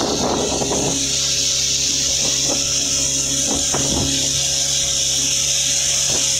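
Speedboat engine running steadily at speed, under a loud, steady high rushing hiss, with water splashing off the hull in the first second.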